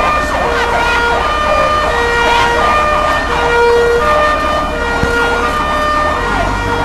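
Fire truck siren sounding a two-tone alternating pattern, switching between two pitches about every two-thirds of a second, with quick up-and-down sweeps over it. A low steady rumble sits underneath.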